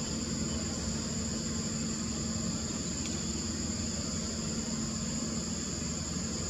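Steady, unbroken high-pitched insect chorus, with a steady low hum and rumble underneath.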